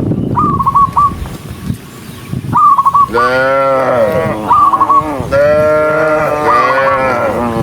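Cattle mooing: two long moos, the first about three seconds in and the second about five seconds in, with several short, high-pitched calls in between.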